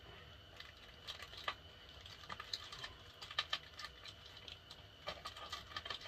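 Utility knife cutting through the brown paper and tape wrapping of a package: irregular small crinkles and clicks, busier from about three seconds in.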